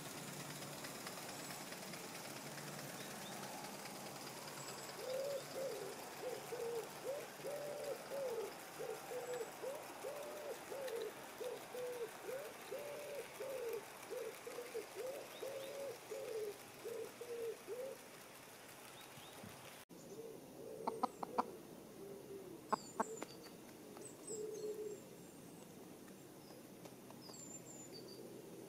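A pigeon cooing in a long run of repeated phrases lasting about a dozen seconds. Later come a few sharp clicks, brief high chirps from a small bird, and a little more cooing.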